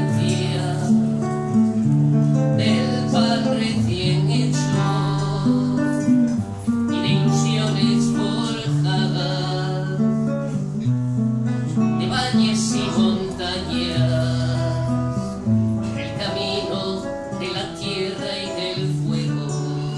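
Acoustic guitar played live, strummed chords with moving bass notes, the chords changing every second or so.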